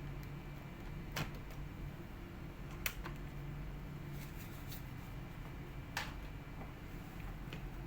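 Small plastic and metal clicks from handling a laptop and its tools: three sharp clicks about a second, three seconds and six seconds in, with fainter ticks between, over a steady low hum.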